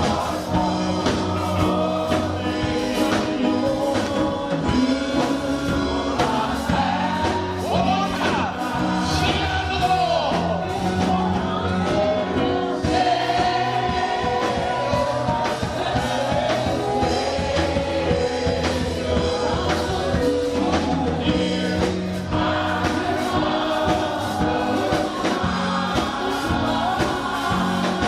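Gospel worship music: a congregation or choir singing with a band, steady bass and drums underneath.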